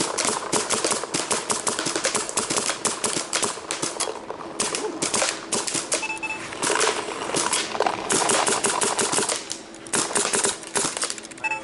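Electronic paintball marker firing rapid strings of shots, each a sharp pop, with short breaks between the strings.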